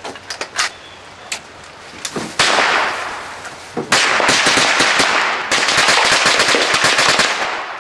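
Gunfire: a few sharp shots at first, a louder crack with a long echo about two seconds in, then a fast run of shots in quick succession whose echoes blend into a continuous rumble until near the end.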